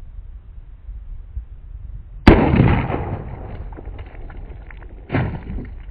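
A single shot from a Ruger LCP II .22 LR pistol, a sharp crack with a short decaying tail. A second, softer thump follows about three seconds later.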